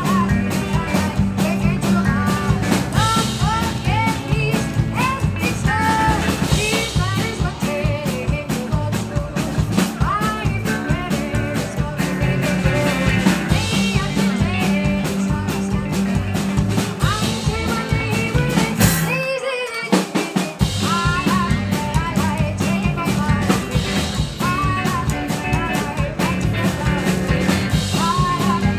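Live rock and roll band: a woman singing over strummed acoustic guitar, electric guitar, upright bass and drums at a steady driving beat. About two-thirds of the way in the band stops for about a second, then comes back in.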